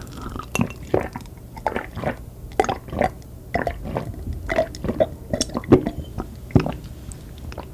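Mouth eating ice cream: an irregular string of short wet smacks and squelches, about two a second.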